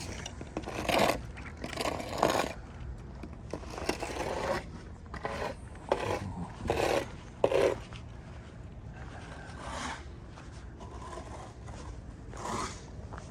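A series of irregular scrapes, about nine of them, each lasting under a second, with the loudest clustered in the first eight seconds.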